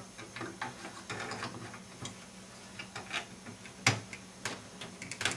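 Pentium III SECC processor cartridge being worked into its Slot 1 plastic retention shroud: scattered light plastic clicks and taps, with one sharper click a little before four seconds in.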